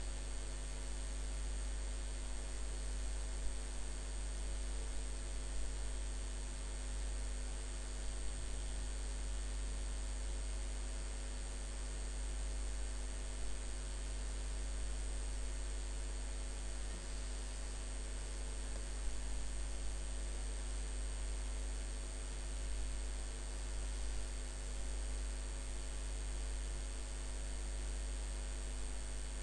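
Steady low electrical hum with a faint even hiss, unchanging throughout.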